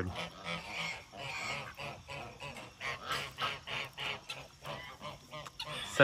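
Geese honking among other waterfowl calls, with irregular water splashing as a duck bathes.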